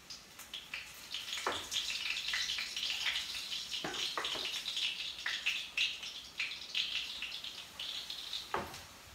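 Perkedel (Indonesian potato fritters) sizzling and crackling in hot oil in a frying pan. The sizzle builds over the first second as the fritters go in, with a few sharp pops and knocks.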